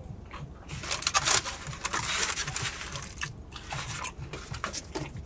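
Food wrapper being handled, crinkling and rustling for a couple of seconds from about a second in, then a few last crackles.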